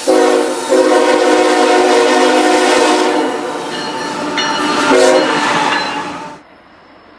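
Locomotive multi-chime air horn played in a horn show: a short blast, a long blast of about three seconds, then a brief blast about five seconds in. The noise of the passing train follows and fades.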